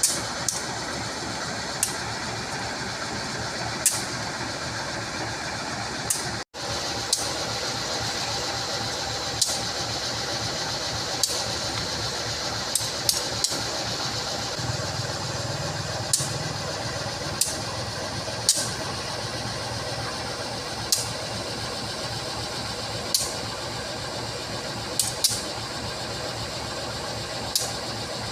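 Diesel locomotive idling with a steady low hum, sharp clicks scattered irregularly through it. The sound drops out for a split second about six seconds in.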